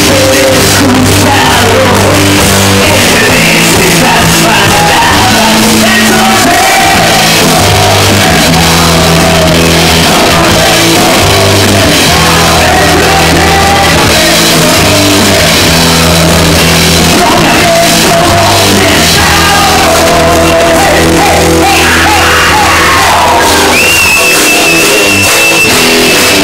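Live rock band playing loud: electric guitar, bass and drums under shouted vocals. Near the end a steady high tone rings over the band.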